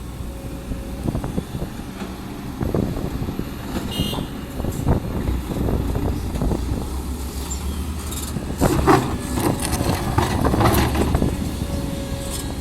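Kobelco SK200 Gen 10 excavator's diesel engine running under load as the bucket digs into hard laterite and rocky soil, with irregular knocks and scraping of steel on stone. The scraping and clanking are loudest for a few seconds after the middle.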